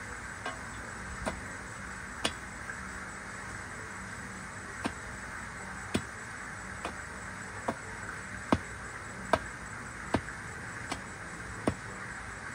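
Hand tool striking into the ground while someone digs: a few scattered strikes at first, then a steady beat of about one sharp strike every 0.8 s over a constant hiss.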